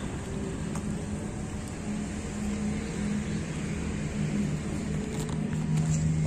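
A motor vehicle engine running, a steady low hum whose pitch wavers slightly, with a few faint clicks.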